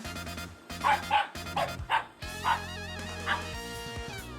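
Mame shiba inu barking and yipping at a vacuum cleaner, about six sharp barks, over background music.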